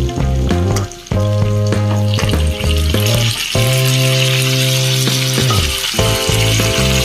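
Pork belly pieces hitting a hot pan of frying green bell pepper and onion, the oil sizzling and hissing louder from about two seconds in. Background music plays throughout.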